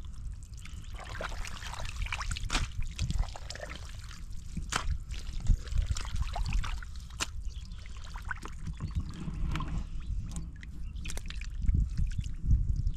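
Hands squelching and sloshing through thick wet mud and shallow muddy water, with many short wet splats and trickles scattered throughout as the mud is scooped and stirred.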